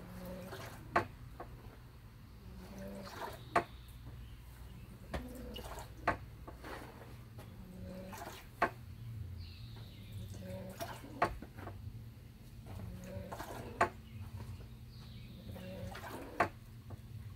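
Sharp snapping cracks at a steady pace, about one every two and a half seconds, from the strikes and stances of a taekwondo form performed outdoors, with lighter ticks between them. Faint bird chirps come in twice in the second half.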